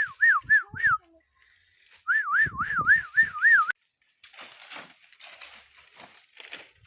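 Two runs of clear whistled notes, each note a quick rise and fall, about four a second: one at the start and another about two seconds in. A soft rustling hiss follows through the rest.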